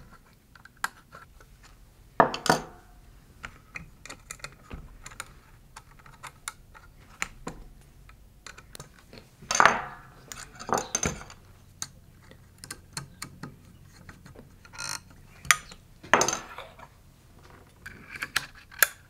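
Small metal robot-kit parts (channel plates, screws and a hex key) being handled and fitted on a wooden tabletop: scattered metallic clicks and clinks, with a few louder clatters about two, ten and sixteen seconds in.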